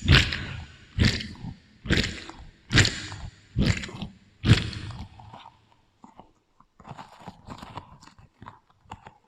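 Crunchy bites and chewing of juicy fruit, processed with an echo effect: six loud crunches at an even pace of about one a second, then softer, smaller chewing sounds near the end.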